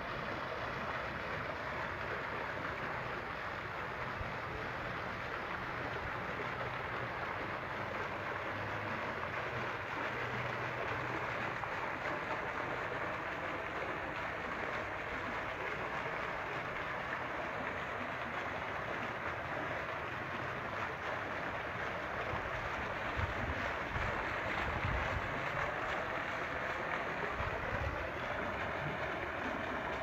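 Water jets of a two-tier garden fountain splashing steadily into its pools. A few low rumbles come in near the end.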